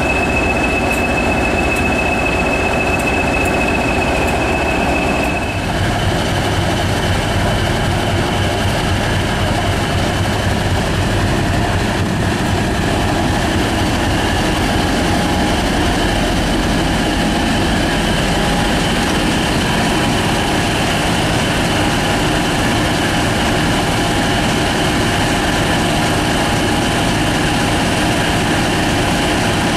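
Diesel locomotive engines running at a station: first a BR Class 20's English Electric engine with a steady high whistle over it. After a cut about five seconds in, a Class 50's English Electric engine runs with a deeper steady hum.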